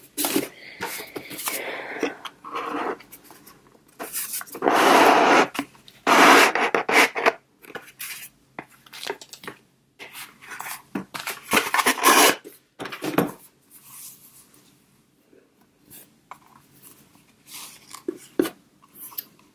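Packaging being handled: a cardboard gift box and a cotton dust bag rustled, rubbed and slid in irregular bursts of a second or so. The loudest bursts come about a quarter of the way in and again just past halfway, and only light touches follow in the last few seconds.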